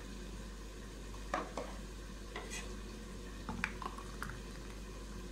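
A steel ladle clinking and tapping against a pot and a plastic mold tray as thick mango ice-cream batter is ladled into the molds: several small, light knocks from about a second in, over a faint steady hum.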